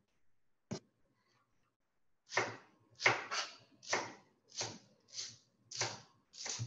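Knife slicing leeks into half moons on a cutting board: a single chop about a second in, then a steady run of chops, nearly two a second.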